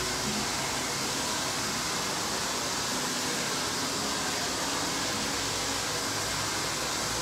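Handheld hair dryer blowing steadily while blow-drying short hair.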